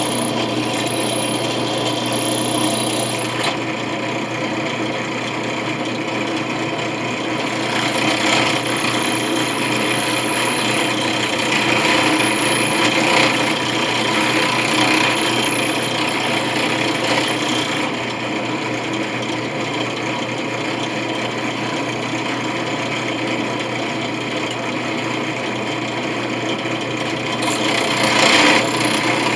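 Electric drill running with a steady motor hum while the bit grinds against a brass coin, the grinding swelling and easing a few times.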